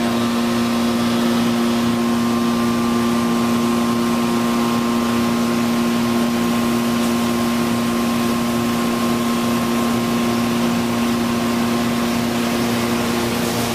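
Industrial machinery running with a steady hum.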